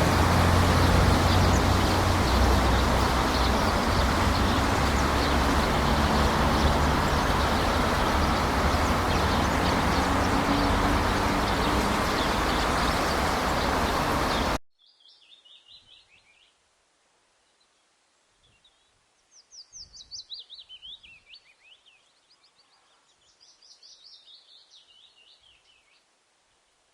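Steady road traffic noise with faint bird chirps, cut off abruptly about halfway through. In near quiet after it, a songbird sings three short trilled phrases, each falling in pitch, the middle one loudest.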